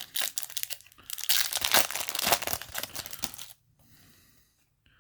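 Foil booster pack wrapper being torn open and crinkled by hand, a dense crackling that stops about three and a half seconds in.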